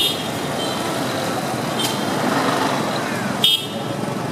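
Busy street traffic with motorbikes running, and short high beeps near the start and about three and a half seconds in.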